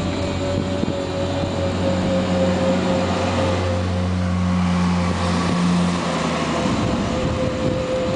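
Electric motorcycle's motor running under power while climbing a steep slope, a steady whine that sinks slightly in pitch, over wind and road noise. A low hum underneath drops away about six seconds in.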